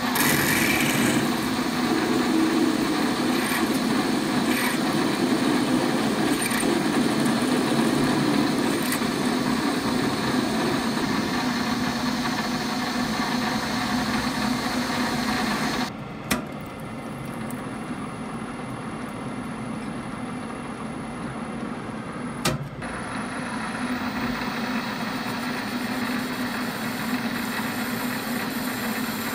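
Metal lathe running with a steady machine hum while a twist drill in the tailstock chuck cuts into the spinning metal workpiece. The sound drops abruptly about sixteen seconds in, with a short click, and comes back up a little after a second click around twenty-two seconds.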